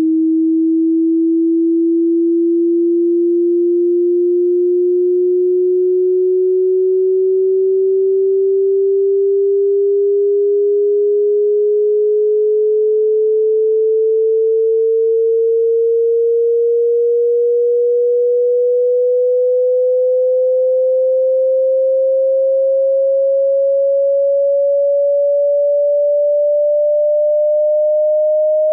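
A single pure sine test tone gliding slowly and steadily upward in pitch, rising by about an octave, at constant loudness: a hearing-test frequency sweep.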